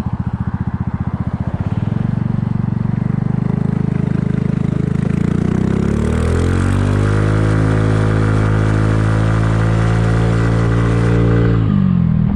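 Kymco People 250 scooter's single-cylinder engine through a slip-on muffler. It starts as a low, pulsing lope, then climbs in pitch over a few seconds as the scooter accelerates, holds steady, and drops off sharply near the end as the throttle closes. The gaps between the slip-on muffler and the original down pipe are filled with JB Weld to stop exhaust leaks.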